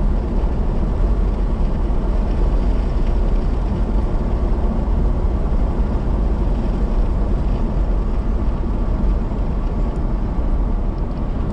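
Steady road and engine noise of a moving car heard inside the cabin: a deep, even rumble with tyre noise on the pavement.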